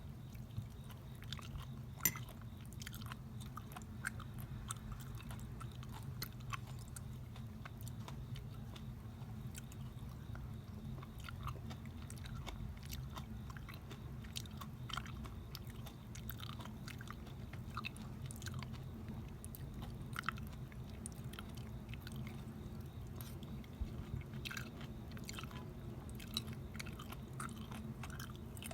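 A person chewing homemade grapefruit cheong, grapefruit pieces preserved in sugar syrup, with many small irregular mouth clicks and bites throughout. A steady low hum runs underneath.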